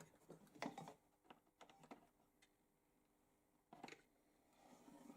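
Faint scattered clicks and light knocks of small parts being handled.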